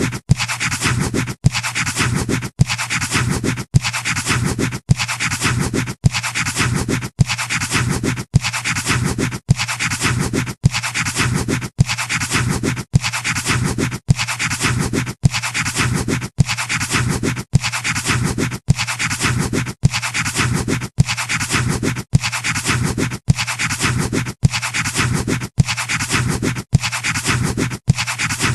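Pencil scratching on paper, a short sound-effect recording looped over and over, with a sharp break about every second.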